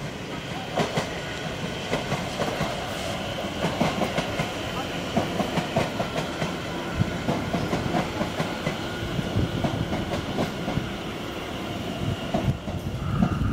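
London Overground electric multiple-unit train passing, its wheels clacking over the rail joints with a steady rumble and a faint electric whine.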